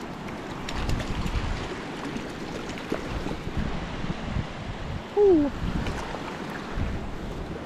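Wind rumbling on the microphone over water sloshing and dripping as a small trout is handled and released at the water's edge. About five seconds in, a brief falling tone stands out, the loudest moment.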